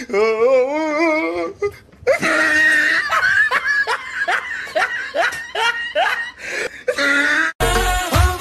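Loud laughter: a wavering drawn-out laugh, then a long run of repeated bursts of laughing. Near the end it cuts off suddenly into pop music with a steady bass beat.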